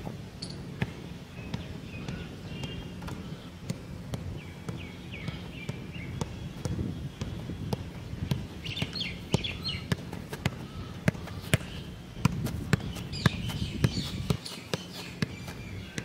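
A football being juggled and dribbled on grass: repeated sharp, irregular thuds of the ball against the boots, coming in quick runs and loudest in the second half. Birds chirp in the background.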